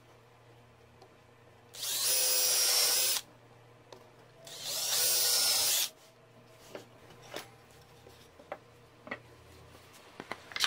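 Electric power drill run twice for about a second and a half each, with a whine that starts quickly and cuts off sharply when the trigger is released. A few light wooden clicks and taps follow as the timber pieces are handled.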